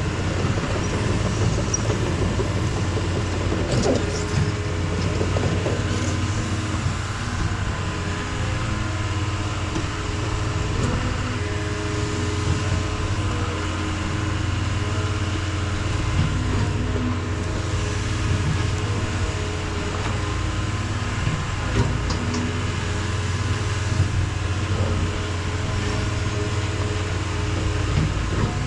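John Deere excavator's diesel engine running steadily under working load while the track hoe digs and cleans up a creek bank, with the pitch shifting now and then and a few brief knocks.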